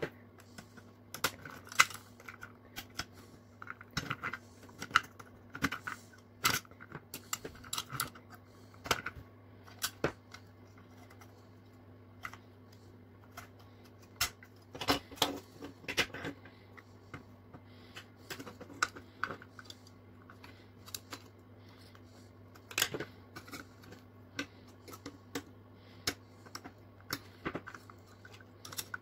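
Irregular light clicks and taps of a small metal Tonka toy truck body and its parts being handled and worked apart by hand, with a faint steady hum underneath.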